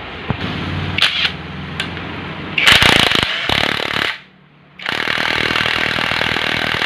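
Impact gun hammering nuts tight: a short burst about two and a half seconds in, a brief pause, then a longer steady burst from about five seconds in.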